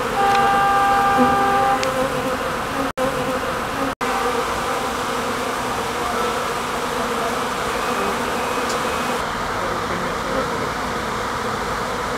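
A swarm of honeybees buzzing, a dense continuous drone of many wings around the clustered swarm. A short steady tone sounds briefly in the first second or two.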